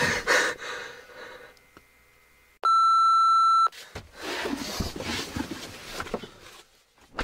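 A single steady electronic bleep, about a second long, that cuts in and out abruptly: a censor bleep over a swear word.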